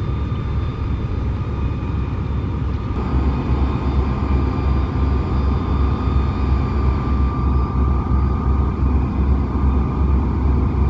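A towboat's diesel engines droning steadily as it pushes barges along the river: a deep, even throb with a steady higher whine over it.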